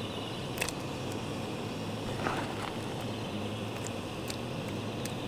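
Portable gas burner running steadily under a pot of fish soup, a constant rushing hiss with a low hum. A few faint light clicks sound over it.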